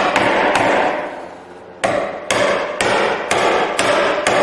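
A wood chisel being struck eight times, about two blows a second, with a pause of about a second after the first two, chopping a tenon's shoulder down to its scribed knife line.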